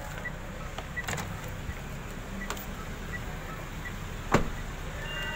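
Mitsubishi Xpander Cross's faint in-car chime pipping about every three-quarters of a second as the driver's door is opened, with a sharp knock about four seconds in. Near the end a steady high warning beep starts: the keyless-entry alert that the key has been taken outside the car.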